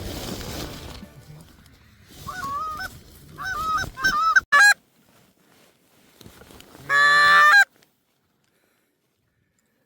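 Geese honking: a run of short honks about two seconds in, then one long, loud honk near seven seconds that starts and stops abruptly.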